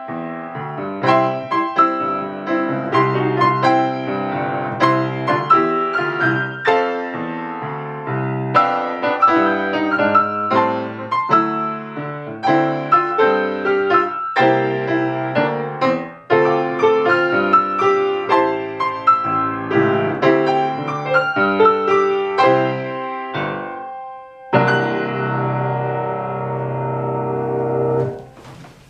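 Grand piano played four hands as a lively duet, ending on a long held final chord that is released abruptly near the end.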